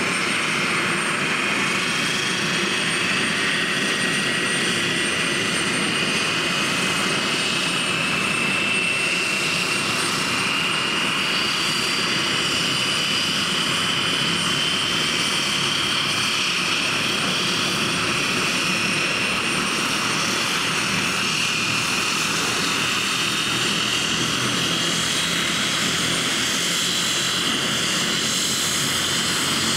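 Antonov An-32's AI-20 turboprop engine running on the ground, one propeller turning while the other engine is stopped: a steady propeller rumble under a high turbine whine that rises slowly in pitch.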